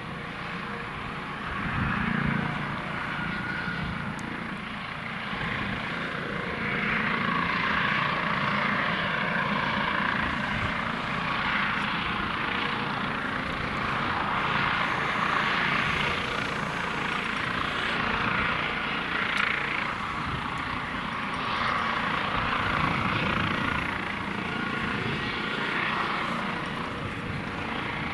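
Eurocopter EC155 helicopter running on the ground with its rotors turning: a steady turbine whine over rotor noise and a low rumble. The sound swells and fades in slow waves.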